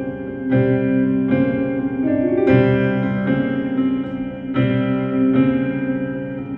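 Piano playing sustained chords that change about once a second, as an instrumental passage without singing, with a short rising glide about two seconds in.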